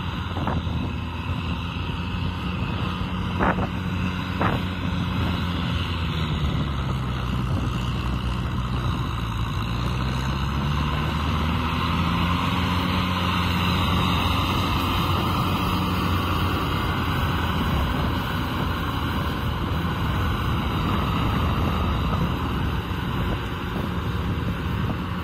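Kubota M6040SU tractor's four-cylinder diesel engine running steadily under load as it works through deep mud in a flooded paddy. Its pitch sags about seven seconds in and climbs back a few seconds later. Two sharp knocks a second apart come early, around three and a half seconds in.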